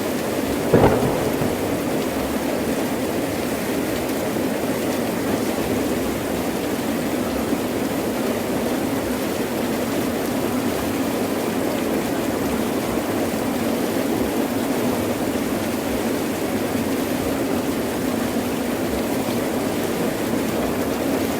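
Heavy rain pouring steadily, with one sharp crack about a second in.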